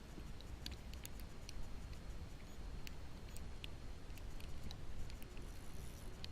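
Muffled wind rumble heard through a GoPro's waterproof case, with scattered faint ticks at irregular intervals.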